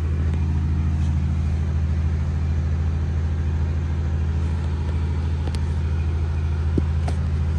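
A steady low droning hum, with a few faint clicks near the end.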